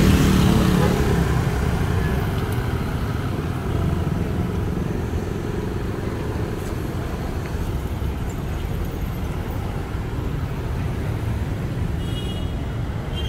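Road traffic with cars and motorcycles passing in a steady rumble. It is loudest at the start, where one vehicle goes by close and its engine note drops, then it settles into an even background noise.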